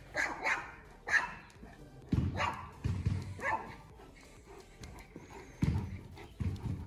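Dog barking repeatedly, sharp barks about half a second to a second apart, some higher and some deeper, with a short lull in the middle.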